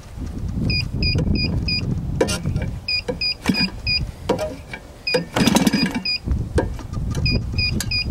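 The propeller of a CRRC GF50i 50cc two-stroke gas engine is flipped by hand with a chicken stick, giving repeated sharp knocks over a rough low rumble, with a louder rough burst about five seconds in. Short high double beeps recur throughout.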